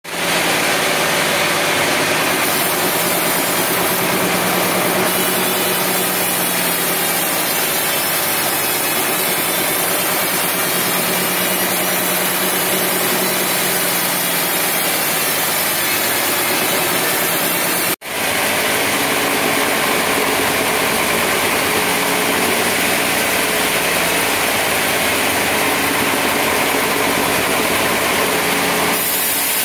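Sawmill band saw cutting a teak log into boards, with the engine that drives it running steadily under the cut. The sound drops out for an instant about eighteen seconds in.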